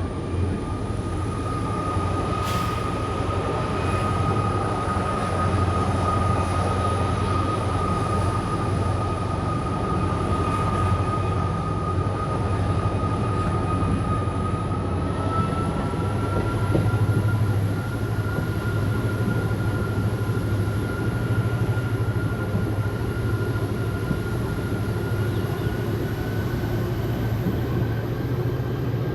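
WDP4D diesel locomotive's EMD 16-cylinder two-stroke engine running under a low rumble, with a steady turbocharger whine, the humming sound typical of this class, whose pitch creeps slowly upward.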